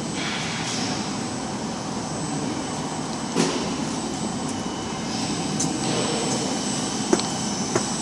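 Steady hum and whine of machinery running on a CNC router shop floor, with a sharp knock about three and a half seconds in and two short clicks near the end.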